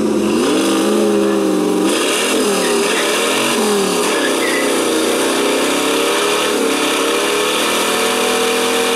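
Car engine revving hard for a burnout: its pitch climbs, rises and falls a few times, then is held high and steady while the rear tyres spin on the wetted track. From about two seconds in, a hiss of tyre noise joins the engine.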